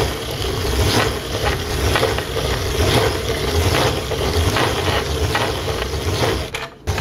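Hand-cranked cast iron grain grinder grinding roasted cocoa beans with sugar and dried coconut into a liquid chocolate paste. The burrs make a steady grinding rumble with a scraping stroke about twice a second as the crank turns, and it stops briefly near the end.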